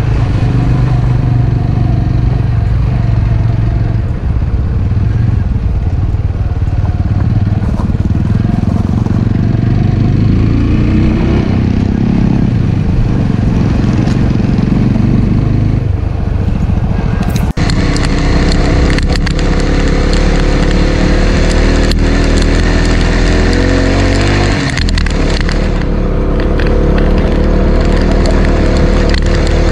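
Motorcycle engine running on the move, its pitch rising and falling with the throttle. The sound changes abruptly a little past halfway through.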